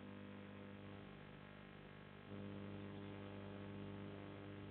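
Faint electrical mains hum, a steady low drone. It dips about a second in and comes back stronger a little after two seconds.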